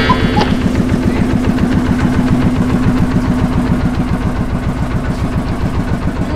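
Klotok river boat's diesel engine running steadily, with a rapid, even chugging pulse.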